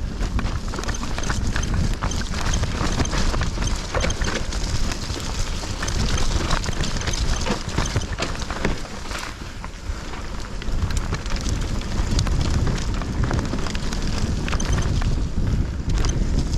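Mountain bike descending a dirt trail: wind buffets the microphone in a steady low rumble, over a constant run of sharp clicks and rattles from the tyres and bike on rough ground.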